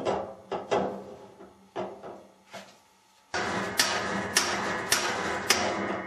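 A hammer striking the handle of a spanner wrench to tighten a Maytag washer's brake assembly onto the transmission: a series of short sharp knocks, irregular at first, then after a short pause about two a second.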